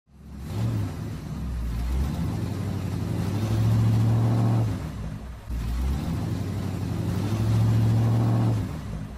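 A motor-vehicle engine running, with a low steady hum that swells twice in the same pattern; it starts and stops abruptly.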